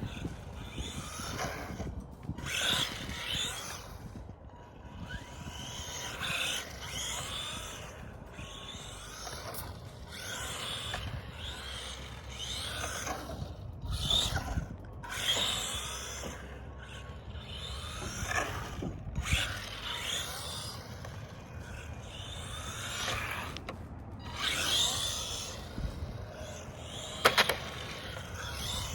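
Team Associated Reflex 14R 1/14-scale electric 4WD RC car running in repeated bursts of a second or two as it speeds up and slows, its motor and drivetrain whining, with a single sharp knock near the end.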